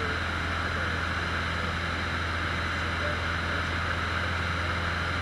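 Cessna 150's Continental O-200 four-cylinder engine and propeller droning steadily in flight, heard from inside the cabin as a constant low hum under an even hiss.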